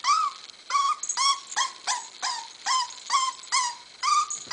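A young corgi puppy whimpering in a run of about ten short, high whines, each rising then falling, roughly two a second. It is the anxious whining of a puppy hesitating at the edge of a stair step, afraid to step down.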